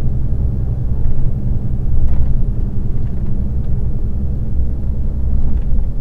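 Steady low drone of a moving vehicle's engine and road noise, heard from inside the cab while driving.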